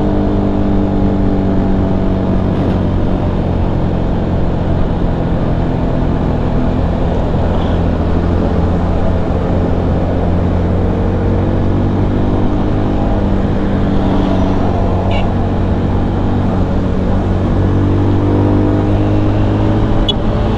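CFMoto Papio XO-1 minibike's single-cylinder engine running while riding at steady road speed, its note rising and falling a little with the throttle over a continuous rush of wind and road noise.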